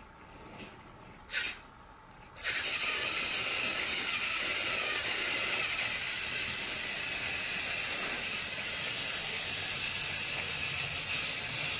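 A short hiss about a second in, then a loud, steady hissing rush that starts suddenly about two and a half seconds in and keeps on without a break.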